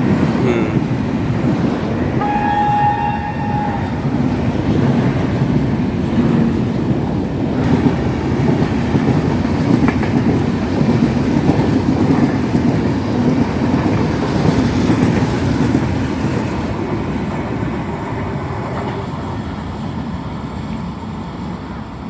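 Rajdhani Express coaches running past on the rails, a loud steady rumble and clatter, with one short horn note about two seconds in. The rumble fades over the last several seconds as the train moves away.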